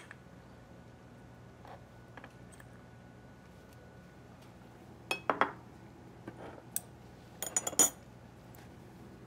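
A few light clinks and taps of a measuring spoon and small kitchen dishes being handled while dry ingredients are measured into a food processor bowl: faint ticks at first, then two quick clusters of clinks past the middle, the second the loudest.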